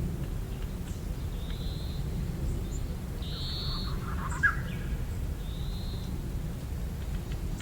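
A songbird repeating a short, high whistled note three times, about two seconds apart, over a steady low rumble. About four and a half seconds in there is a brief, sharper sound.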